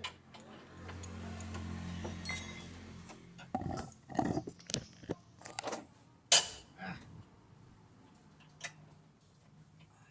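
Metal tools and parts clinking and clanking during car repair work, with a low steady hum for the first few seconds and one loud metallic clank about six seconds in.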